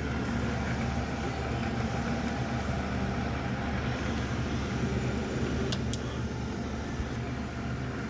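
MSC 1340GH gear-head tool room lathe running, its motor and headstock gearing giving a steady hum, with a couple of sharp clicks about six seconds in.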